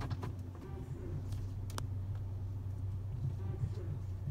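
Car engine idling, a steady low hum heard inside the cabin, with two sharp clicks, one right at the start and one a little under two seconds in.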